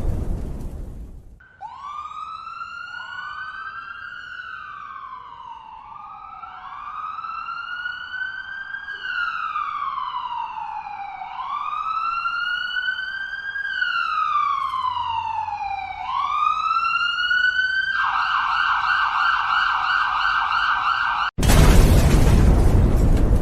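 Emergency-vehicle siren sounding a slow wail, rising and falling over and over, then switching to a fast warble. A loud noisy blast fades at the start and another cuts in suddenly near the end.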